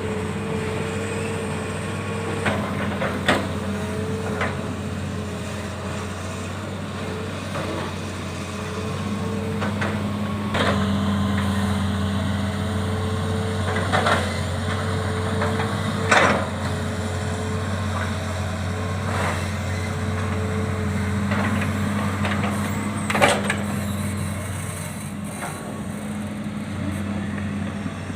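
A heavy diesel engine running steadily, its hum swelling slightly about a third of the way in, with several sharp knocks and clanks at irregular moments.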